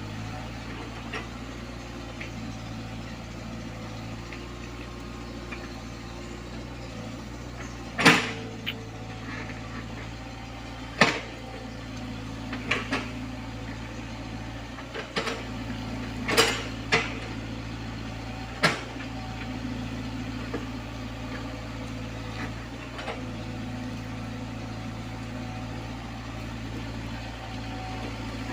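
Komatsu PC75UU mini excavator's diesel engine running steadily at a low hum. Sharp knocks break in several times, mostly in the middle of the stretch.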